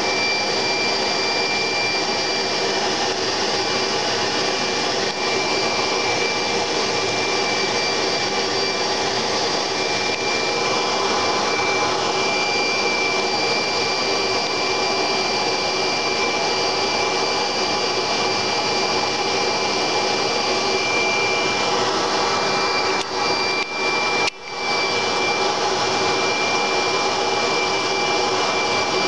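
Steady machine hum and hiss of aquarium equipment such as air pumps and filters, with a thin high whine running through it. The sound dips briefly a few times about five seconds before the end.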